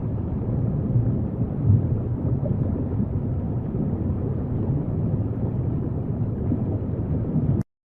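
Deep, steady rumbling noise from a 'sounds of space' recording, with nothing high-pitched in it. It cuts off suddenly near the end.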